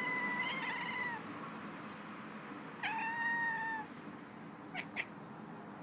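Domestic cat meowing in annoyance, its reaction to its owner's coughing: one long, level-pitched meow ends about a second in, and a second meow about a second long follows near the middle. Two short clicks come near the end.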